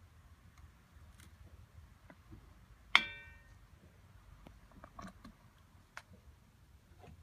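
A single sharp metallic clink about three seconds in, ringing briefly, as a metal tool strikes the crucible of a small backyard melting furnace. A few faint ticks and clicks come before and after it.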